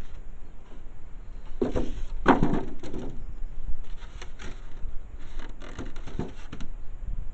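Packaging being handled during an unboxing: a run of irregular rustling and scraping sounds, loudest about two seconds in, easing off near the end.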